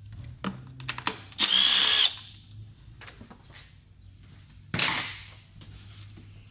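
Cordless power tool running for about half a second about a second and a half in, spinning off a 10 mm nut on the engine cover. A sudden knock follows near five seconds, over a steady low hum.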